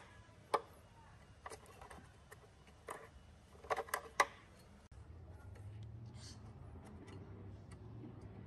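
Scattered light clicks and taps of hands and metal tools working a timing belt onto the pulleys of a Subaru EJ20 engine, the loudest a quick cluster about four seconds in. About five seconds in a steady low hum with faint ticks takes over.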